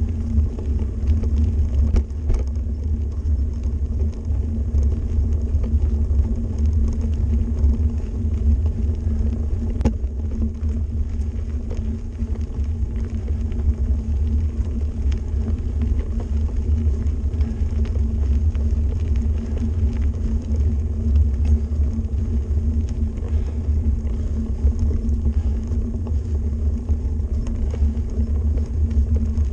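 Mountain bike rolling along a gravel forest road, heard from a camera on the rider or bike: a loud, steady low rumble of tyres on gravel and wind on the microphone. Two sharp knocks from the bike, about two seconds in and again about ten seconds in.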